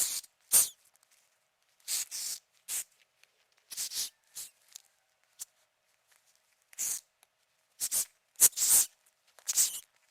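Hissing cockroach hissing: about a dozen short, sharp hisses in irregular bursts, some coming in quick pairs, with silent gaps between them.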